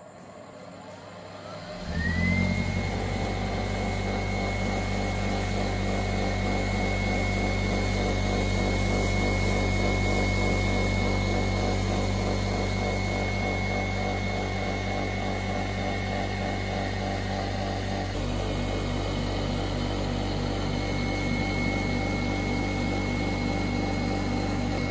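Restored electric ring blower switched on. Its motor spins up with a rising whine over about two seconds, then runs steadily with a high whine over a low hum.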